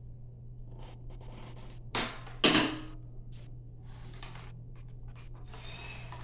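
Handling rustles and small clicks, with two short, loud rustles about two seconds in, over a steady low hum.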